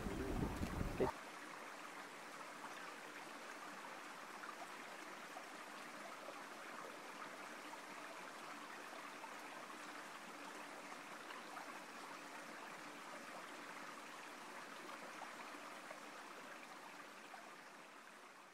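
Wind buffeting the microphone for the first second, cut off abruptly. Then a faint, steady rush of running water, which fades out near the end.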